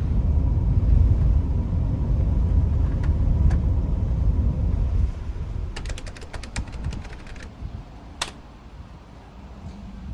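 Low road rumble inside a moving vehicle, which drops away after about five seconds. A quick run of small clicks follows, then one sharper click.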